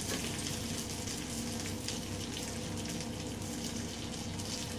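Masala-coated prawns frying in a little oil in a kadai on low flame, a steady sizzling hiss with fine crackles, over a low steady hum.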